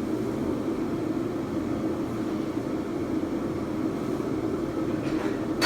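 A steady, unchanging mechanical drone, with one sharp knock at the very end.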